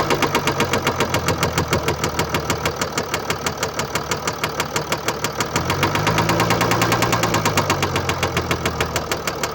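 Mercedes-Benz E350 4Matic 3.0-litre V6 diesel engine running with a rapid, regular knock, several a second. The seller puts the noise down to bearing damage and a defective injector.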